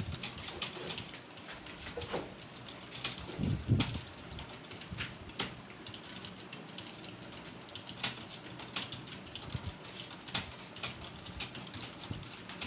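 Computer keyboard keys clicking in an uneven stream of keystrokes as someone types. A brief low sound stands out about three and a half seconds in.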